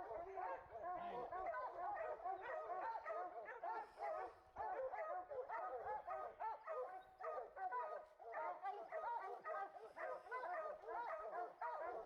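A pack of bear-hunting hounds barking and bawling over one another without a break, many dogs giving voice at once.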